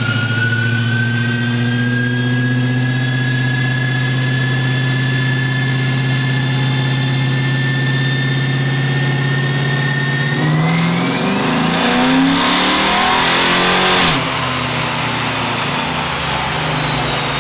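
Dodge Charger R/T's 5.7 L Hemi V8 with long-tube headers making a wide-open-throttle pull on a chassis dyno, a whine climbing slowly in pitch with speed and growing louder and rougher near the top. About fourteen seconds in the throttle closes suddenly and the car coasts down with a falling whine.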